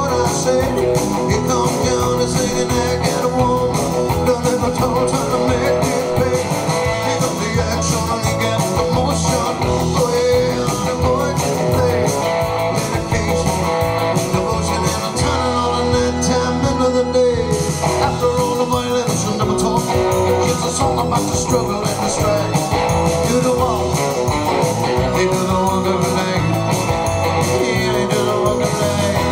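Live rock and roll song: electric guitar played with a steady beat and a man singing.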